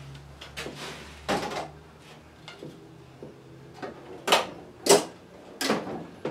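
Steel tool chest drawers sliding open and shut, with tools clattering inside, in a few sharp loud strokes.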